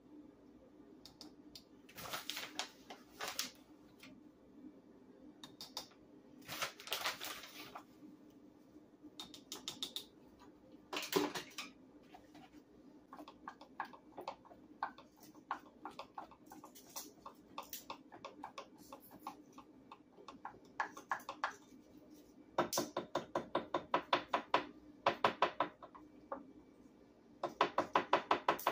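Spatula stirring thick batter in a glass measuring cup, clicking and scraping against the glass in quick runs of strokes. The runs are fastest and loudest in the last few seconds.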